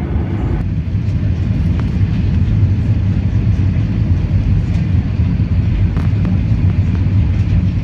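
Steady, loud low rumble of a moving vehicle, with a haze of air noise over it. The sound changes abruptly about half a second in, as at an edit.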